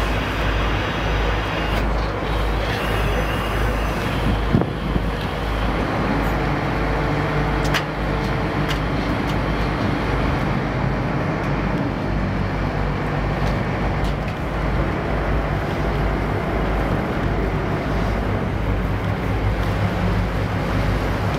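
Car ferry's engines running with a steady low rumble, heard on the open car deck, with a couple of sharp knocks, the loudest about four and a half seconds in.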